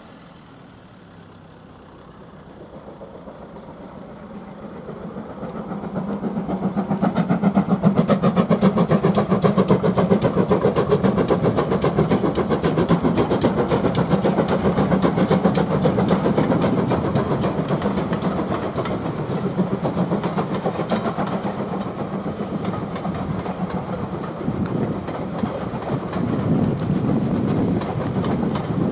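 GWR 'Small Prairie' 2-6-2T steam tank locomotive hauling a train of coaches across a viaduct. The sound grows louder from a couple of seconds in and is loudest about eight seconds in. It stays loud as the coaches roll past.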